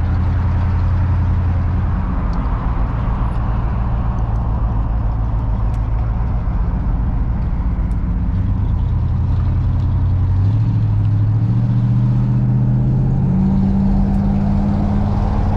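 The 1968 Buick LeSabre's 350 cubic-inch V8, heard from inside the cabin on the move, over steady road and tyre noise. About ten seconds in, the engine note climbs in steps as the car accelerates, then holds at the higher pitch.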